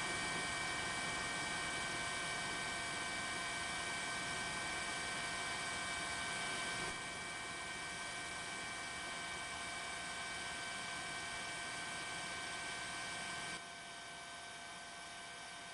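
Steady rushing hum of a helicopter in flight, with several steady high whining tones. It drops in level about seven seconds in and again near the end.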